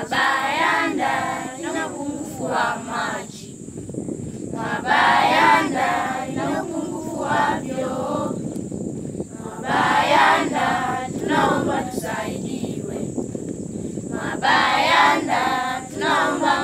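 A choir of schoolchildren singing unaccompanied, in phrases of three to four seconds with short breaks between them.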